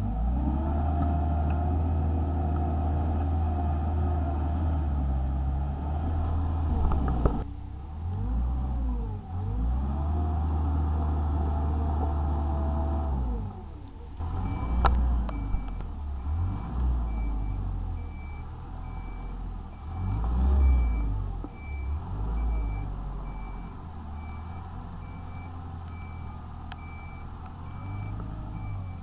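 Gallmac wheeled excavator's diesel engine running under varying hydraulic load as the machine works, its note rising and falling, louder through the first half. From about halfway on, its reversing alarm beeps steadily, roughly once a second.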